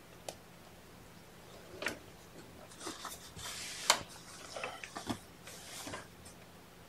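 Rustling of a cloth blanket with scattered light taps and clicks as kittens scamper over it and a hand tugs the bedding. The sounds are loosely grouped, with the sharpest tap about four seconds in.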